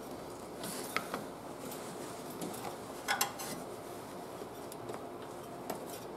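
A few faint metallic clicks and light rubbing as crimping pliers are worked onto an aluminum crimp loop on mechanics wire, with the sharpest pair of clicks about three seconds in.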